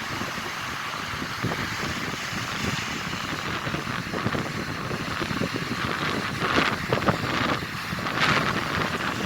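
Strong onshore wind buffeting the microphone over Black Sea surf, with waves breaking more loudly about six and a half and eight seconds in.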